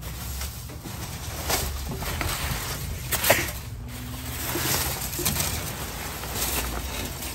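Clear plastic bags and packaging rustling and crinkling in irregular bursts as gloved hands dig through a dumpster, over a steady low hum.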